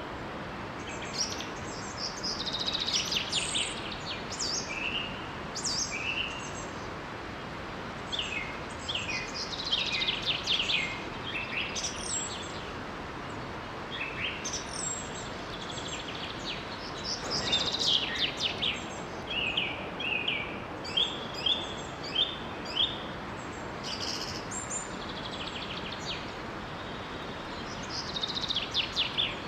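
Several birds singing and chirping in short bursts of rapid trills and repeated high chirps, over the steady rush of a small waterfall.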